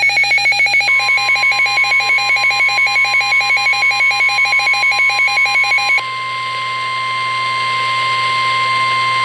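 NOAA Weather Radio receiver sounding a warning alert: rapid, loud pulsing electronic beeps over the steady 1050 Hz warning alarm tone, which starts about a second in. The beeps stop about six seconds in and the steady tone carries on alone. The 1050 Hz tone is the signal broadcast ahead of a warning, here a severe thunderstorm warning.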